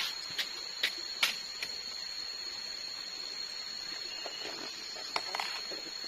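A machete chopping into a felled areca palm trunk to open it for the palm heart: sharp strikes about two or three a second for the first second and a half, then a couple more near the end.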